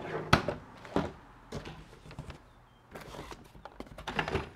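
Unpacking noises: a sharp knock as a hard plastic trimmer part is set down on the table, then cardboard scraping and rustling as a cardboard insert is pulled out of the shipping box.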